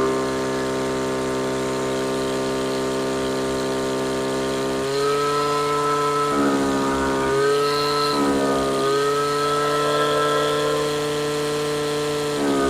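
Stihl FS55 RC string trimmer's two-stroke engine running steadily at high throttle while its carburetor mixture screw is being tuned toward the rich, four-stroking point. Its note shifts back and forth several times about halfway through.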